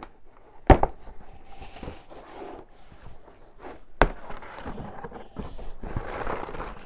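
A tall cardboard box being handled and opened: a sharp knock against the cardboard about a second in and another about four seconds in, the first the louder, then rustling of cardboard and packing as the flaps are pulled open.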